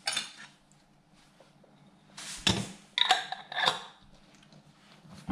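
Glass preserving jars, their metal screw lids and a stainless steel funnel being handled: a short rub of paper towel on a jar rim, then a cluster of clinks with brief metallic ringing about two to four seconds in, and a dull knock at the end.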